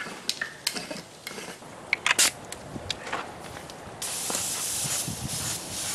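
A few scattered clicks and knocks, then about four seconds in an air spray gun starts spraying primer with a steady high hiss.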